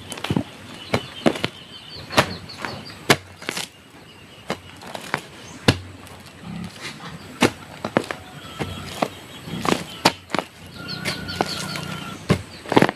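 Irregular sharp knocks and clatter, one or two a second, with faint high chirps behind them.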